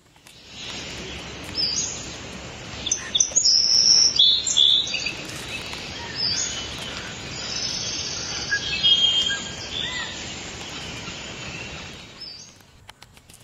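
Birds chirping and singing, many short high calls and trills one after another, loudest a few seconds in and fading away near the end.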